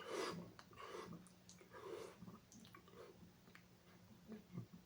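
Faint breathing with small mouth and throat clicks and soft swallowing-like sounds, a man working up a burp.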